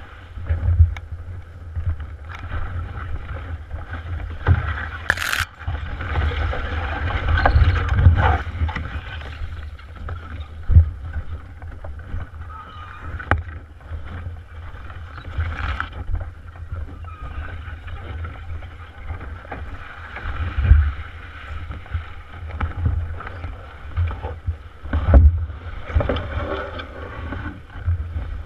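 Hollow rumbling and irregular muffled thuds of an overturned canoe being carried along a portage trail, picked up inside the hull as it jostles on the carrier's shoulders with each step. A single sharp click comes about five seconds in.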